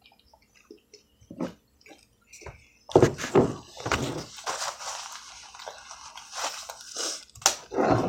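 Close-up eating sounds: wet chewing and lip smacking on food, a few small clicks at first, then dense and busier from about three seconds in.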